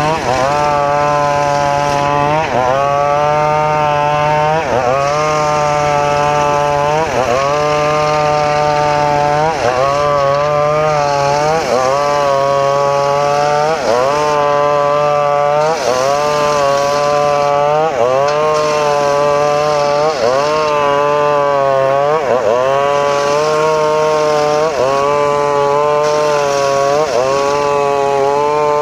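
Home-built circular saw ripping mahogany: a loud, pitched blade whine over a steady low drive hum. The pitch drops and recovers about every two seconds as the blade bogs under load in the wood and spins back up.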